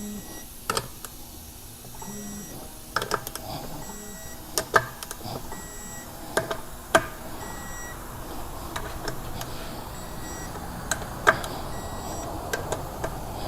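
Torque gun beeping once per bolt as each beadlock ring bolt reaches its 15 ft-lb setting: short high beeps every second or two, mixed with sharp clicks and knocks of the tool on the bolts.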